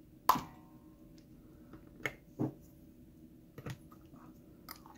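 Sharp metal clicks and clinks of a screwdriver and small parts against the brass body of a Watts 911 boiler pressure relief valve as its top is taken off. The loudest click is about a third of a second in and rings briefly, followed by several lighter clicks.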